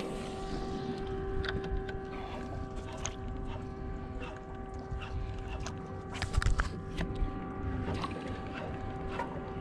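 A steady motor hum over wind and water noise on a small boat, with scattered light clicks and knocks, a short cluster of them the loudest about six and a half seconds in.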